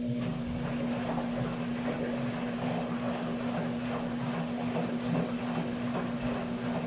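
KMC washing machine running: a steady motor hum with water churning and sloshing in the tub.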